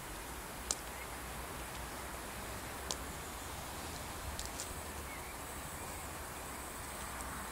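Outdoor ambience: a steady low rumble and hiss with a few faint bird chirps and several short, sharp high ticks.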